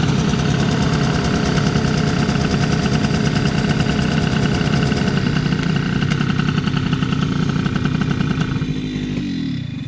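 Two-stroke scooter engine held at full throttle at steady high revs. Near the end the revs drop away and the engine note falls.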